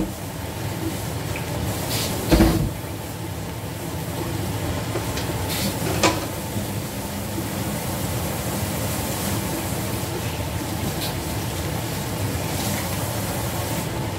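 Corn and vegetable stir-fry cooking in a stainless steel wok over a gas burner: a steady hiss with a low rumble. A loud knock comes about two seconds in and a lighter one about six seconds in.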